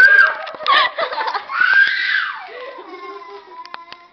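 High-pitched shrieking and giggling, loudest in the first two seconds, with a long squeal about two seconds in. It fades to quieter voice sounds and a few light clicks near the end.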